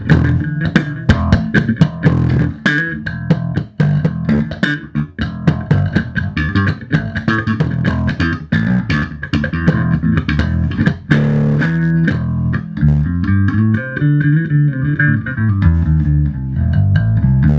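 Short-scale Birdsong Cortobass electric bass, played solo through its bridge pickup: a run of plucked notes with sharp, percussive attacks, turning into a smoother line of notes near the end.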